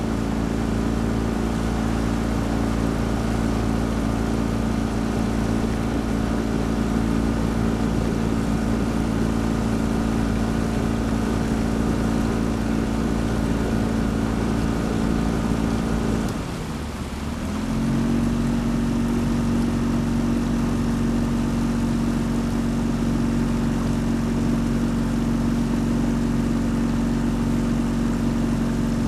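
Motorboat outboard engine running steadily at low speed. About halfway through the engine note dips away for a second or so, then settles back to a steady, slightly lower pitch.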